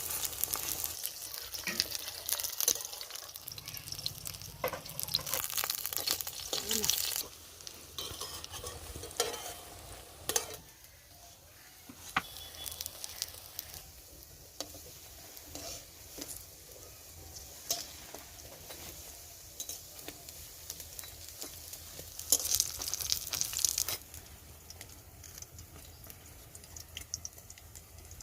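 Batter-coated pumpkin flowers deep-frying as pakoras in hot vegetable oil: a steady sizzle full of small crackles and pops. It is louder for the first several seconds and again briefly near the end.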